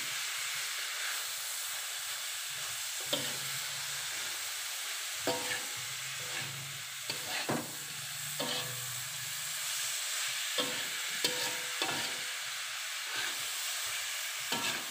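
Metal spatula stirring fried tempeh and tofu around a wok, over a steady sizzle, with irregular clinks and scrapes of the spatula against the pan. This is the stir-fry stage where the spice paste and sweet soy sauce are worked in until they soak into the pieces.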